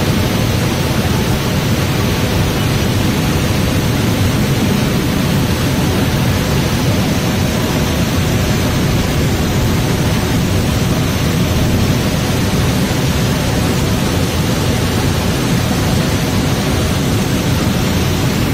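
Muddy floodwater from heavy rain rushing in a torrent over rocks and down a cascade, a loud, steady rush of water.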